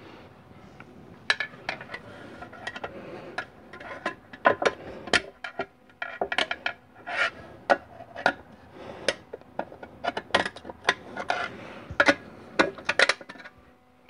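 Many sharp, irregular metal clicks and clinks as a snap ring is worked into its groove inside a 700R4 transmission case with a screwdriver, steel on the clutch pack and aluminium case.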